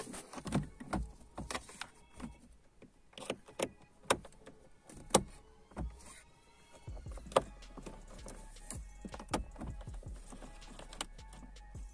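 Sharp hard-plastic clicks and knocks of a Honda Civic instrument cluster and its clear lens being handled and pressed into the dashboard housing, a rapid irregular series of taps.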